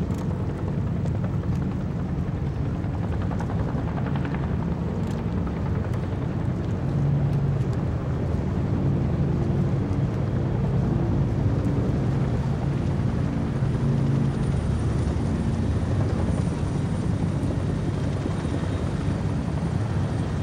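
Motorboat engines running steadily under way: a low, even drone that grows a little louder about seven seconds in.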